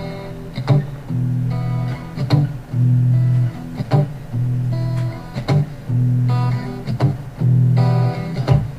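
Music track: a guitar song with a steady beat.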